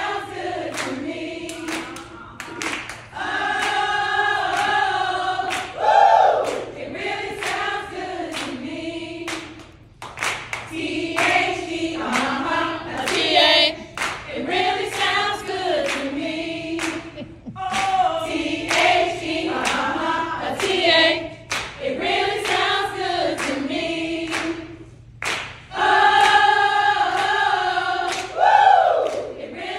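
A group of women chanting and singing in unison, in short repeated phrases, with sharp rhythmic claps through the chant, as in a sorority step routine.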